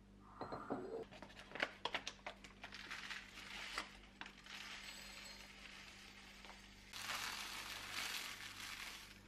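A glass carafe clinking as it is handled and a bag of rolled oats crinkling, then dry rolled oats poured from the bag into the glass carafe with a steady hiss, loudest in the last two seconds.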